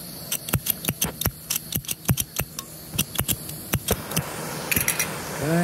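Flint spark striker squeezed over and over to light a propane hand torch: a quick series of sharp clicks, about three or four a second, with a few more near the end.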